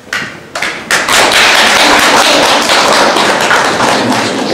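Audience applauding: a few separate claps at first, then dense, steady applause from about a second in, easing slightly near the end.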